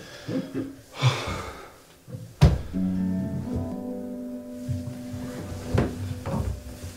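One sharp thunk about two and a half seconds in, followed by soft music with long held notes, possibly a guitar, and a couple of lighter knocks near the end.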